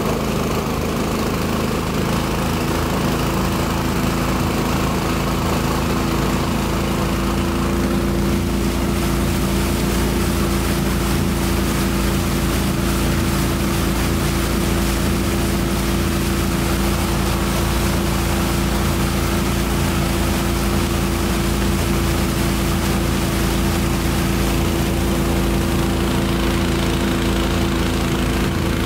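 Small motorboat's engine running steadily under way, with water rushing and splashing along the hull. The engine's hum settles into a clearer, steadier tone about eight seconds in.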